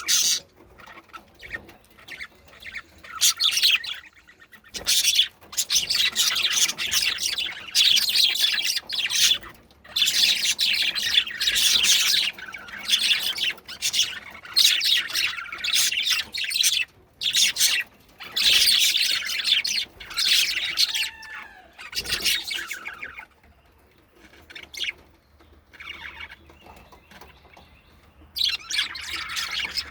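Pet budgerigars chattering and warbling in bursts of rapid chirps, falling quieter for a few seconds from a little after twenty seconds in and starting up again near the end.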